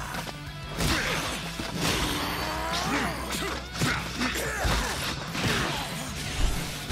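Animated fight-scene soundtrack: hits, crashes and whooshes, with a character's strained shouts rising and falling in pitch.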